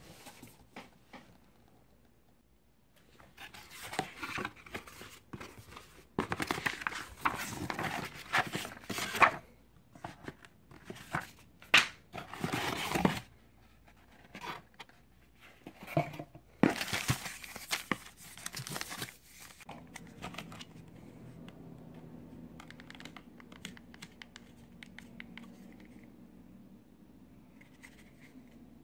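Plastic packaging and cardboard box flaps crinkling, rustling and tearing in irregular bursts as accessories are unpacked. A faint low hum is left in the last third.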